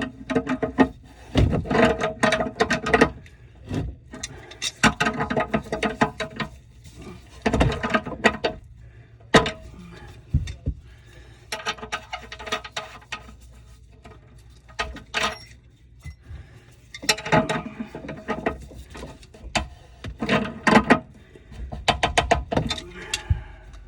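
Irregular clanks, clinks and knocks of tools and plumbing parts being handled, several with a short ringing tone, coming in busy clusters with quieter pauses between.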